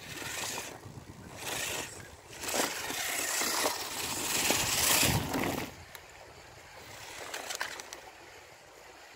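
Homemade RC crawler car driving over loose rocks and gravel: a rough crunching, scraping noise that comes in surges, loudest as it passes close, then drops off sharply a little under six seconds in.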